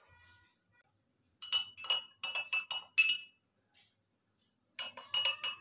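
A metal spoon clinking against a cup in two quick runs of ringing taps: about six taps around a second and a half in, then about four more near the end.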